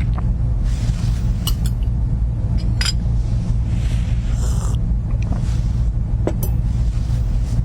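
A steady low rumble with several sharp clicks and ticks over it, and soft rushing noise that swells and fades.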